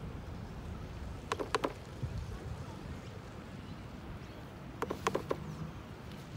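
A palette knife dabbing paint onto a large stretched canvas: two short runs of quick, lightly ringing taps, about three and then four or five, over a low steady rumble.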